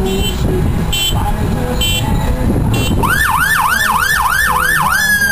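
Fire truck siren in a parade. It gives a few short beeps about once a second, then about halfway through switches to a fast yelp of rising sweeps, about three a second, and near the end starts to wind down in a long falling glide. Engine noise runs underneath.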